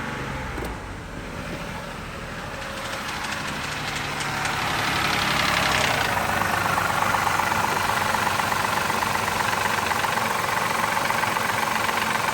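2003 Mazda 6's 3.0 V6 engine running, with a rapid ticking knock; it grows louder a few seconds in and then holds steady. The owner suspects a bad lifter or timing chain.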